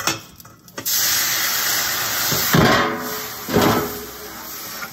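Hot pan held under running tap water, hissing and sizzling as the water flashes to steam, with two louder surges in the middle.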